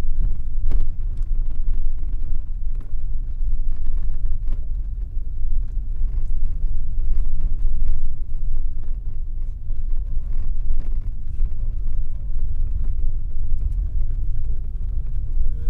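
Car driving on a gravel road, heard from inside the cabin: a steady low rumble of engine and tyres, with scattered small clicks of gravel.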